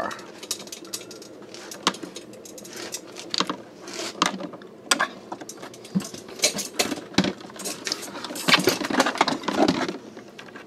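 Irregular metallic clicks, taps and scrapes from hands working on the mechanism of a vintage Zenith record changer while trying to press a retaining clip into place. The clattering grows busier near the end.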